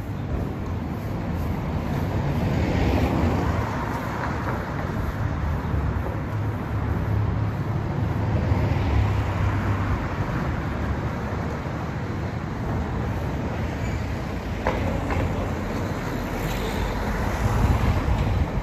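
Steady low rumble of vehicle noise that swells louder about three times, with a single brief knock near the end.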